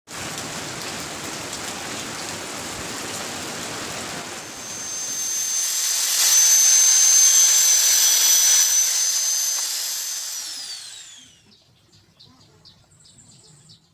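High-speed power tool running with a steady high whine that grows louder, then winds down in pitch and fades as it is switched off.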